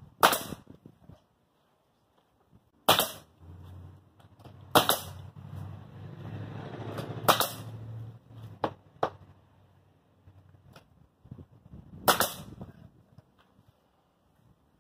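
Pneumatic nail gun firing nails through Hardie fiber-cement siding planks into the wall: five loud sharp shots spaced a few seconds apart, with a couple of fainter clicks in between.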